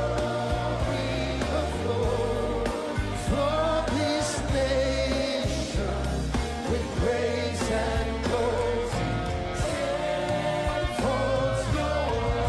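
Live gospel worship music: voices singing over a band with steady bass and drums.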